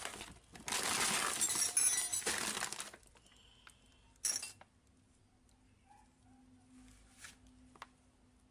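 Loose rusty metal hardware clattering and a plastic bag rustling for about three seconds, then a single sharp metal clink about four seconds in and a few faint clicks as pieces are handled.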